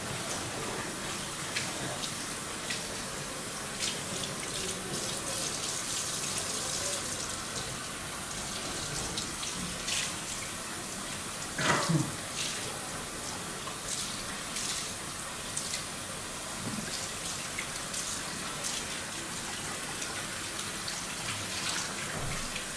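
Tap water running steadily into a sink, with scattered small clicks and splashes, and one short falling squeak about halfway through.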